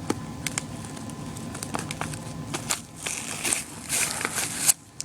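Packaging being handled and pulled at to open it: scattered clicks and crinkling rustles that grow busier about three seconds in, with a sharp snap near the end.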